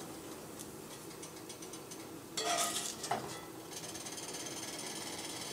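A spatula scrapes and knocks against a cast iron skillet as pulled pork is scooped out, with a louder scrape about two and a half seconds in. A light sizzle from the hot oiled pan comes up near the end.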